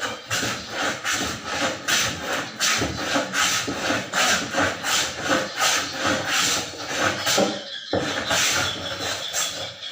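A hand tool scraping back and forth on wood in quick, regular strokes, about two or three a second, breaking off briefly near the end.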